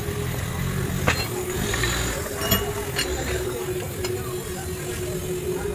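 A few sharp metal clicks and taps as a rotavator PTO universal joint and its needle-bearing cups are handled at a steel bench vise, over a steady hum and low background rumble.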